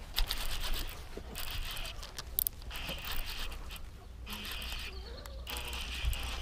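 Scratchy, stop-start rustling of the rod, reel and hands against dry reeds while a hooked bass is reeled in, over the low rumble of wind on the microphone.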